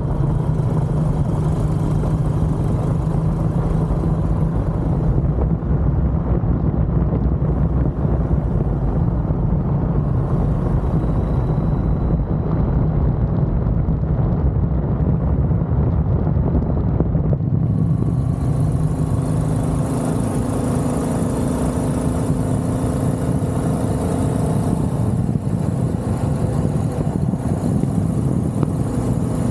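Royal Enfield Classic 350 single-cylinder engine running steadily under way at road speed, with wind and tyre noise. About 18 seconds in the sound changes: a higher engine note comes in along with more hiss.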